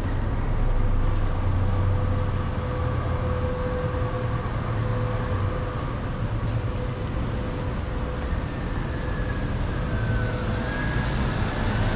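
Steady street traffic noise: the low rumble of vehicle engines running and passing.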